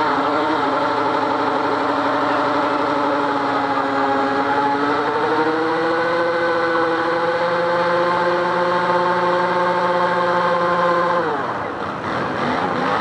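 ATV engine held at high revs in a burnout, rear wheels spinning on grass, its pitch climbing a little about five seconds in. About eleven seconds in the throttle is let off and the pitch drops sharply, then it revs up again near the end.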